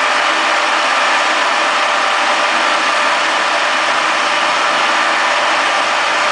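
Conventional milling machine running steadily while its rotating tool friction stir welds an aluminium alloy plate: an even mechanical running noise with a faint steady whine.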